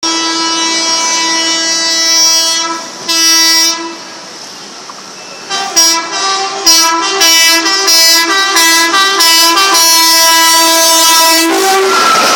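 WAP4 electric locomotive's air horn sounding a long blast, then a short one. After a brief lull it gives a rapid stuttering run of blasts whose pitch wavers between two notes: the whistling, wheezy 'asthmatic' horn sound of this locomotive.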